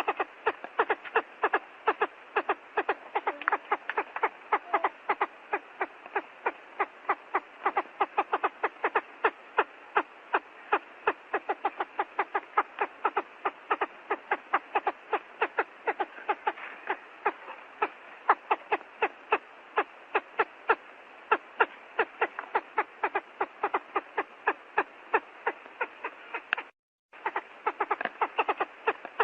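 Quail calling: a rapid, steady series of short, sharp notes, several a second, with a brief break near the end.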